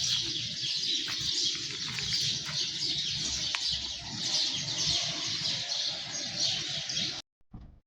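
Many birds chirping together in a dense, continuous chorus, which cuts off abruptly near the end.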